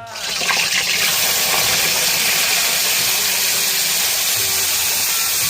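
Food frying in hot oil in a pan, a loud steady sizzle that starts suddenly, with some crackling in the first second.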